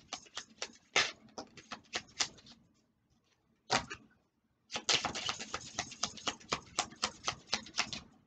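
A deck of oracle cards being shuffled and handled, making runs of quick clicks: a burst at the start, a pause with a single click, then a longer, denser run.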